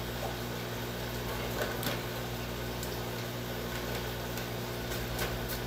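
Steady electrical hum of an aquarium filter pump, with a few faint clicks here and there.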